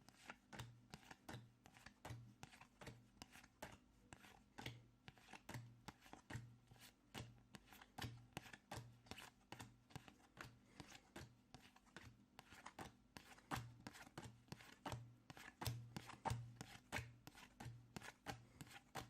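Pokémon trading cards being handled and laid down one after another onto piles on a table during sorting: a steady run of soft taps and clicks, a couple a second.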